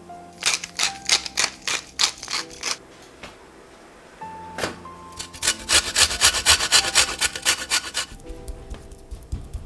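A wooden hand pepper mill grinding in a run of crunchy twists, then a lemon scraped quickly up and down a metal box grater for zest, the strokes faster and louder. Soft piano music plays underneath.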